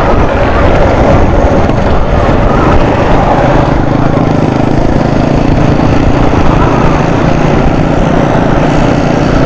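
Small motorcycle engine running steadily under way, buried in heavy wind and road noise on the microphone.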